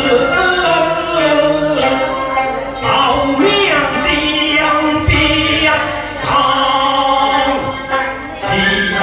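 Teochew opera music: a singer's voice carrying a melody over instrumental accompaniment, with sharp percussion strokes now and then.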